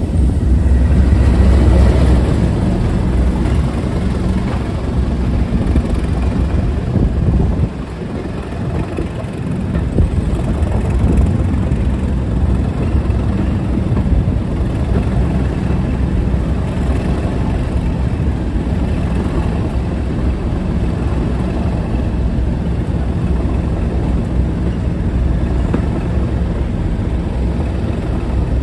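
Class 37 diesel locomotive's English Electric V12 engine running under power as it hauls the train, a steady low drone heard from the coach behind it. The engine note drops for about two seconds roughly a quarter of the way in, then comes back up.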